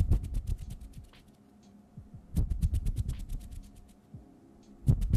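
Hands rubbing and fluttering close to the microphone in three bouts of fast strokes, about six a second, each starting loud and fading away.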